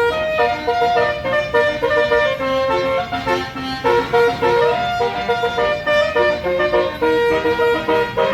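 A bus's multi-note basuri 'telolet' horn playing a fast tune of short notes that step up and down in pitch, with one note sliding upward about halfway through.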